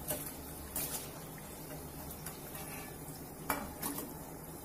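Cutlets frying quietly in hot oil, with a few sharp clinks of a metal slotted spoon against the pan and a steel plate as the fried cutlets are lifted out; the sharpest clink comes about three and a half seconds in.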